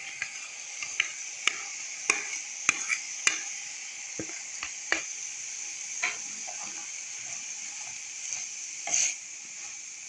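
Minced meat and chopped onion frying in ghee in a pan: a steady sizzle, with the pan being stirred. The utensil knocks against the pan several times in the first few seconds and once more, louder, near the end.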